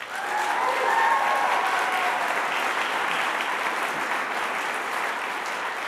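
Large audience applauding, starting at once and going on steadily, with a few faint cheers in the first couple of seconds.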